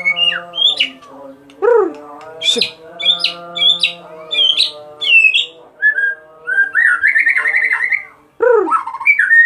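White-rumped shama (murai batu) singing: a quick run of sharp whistled notes and chirps that glide up and down, over lower drawn-out wavering calls.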